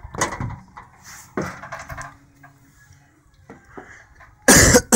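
Rustling and knocking from a phone camera being handled and swung around, with a loud clatter about four and a half seconds in.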